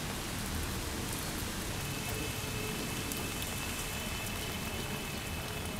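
Steady rain falling, an even hiss with small patters of drops. A faint, high steady tone joins about two seconds in.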